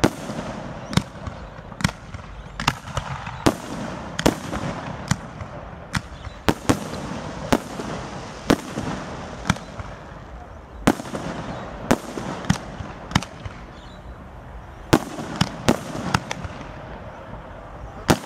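Aerial firework shells bursting in an irregular barrage of sharp bangs, one to two a second, with a short lull about two-thirds of the way through.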